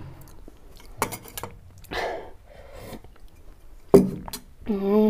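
Close-miked chewing of a mouthful of food, with a sharp clink about four seconds in from a metal spoon against a ceramic bowl, followed by a short hummed voice near the end.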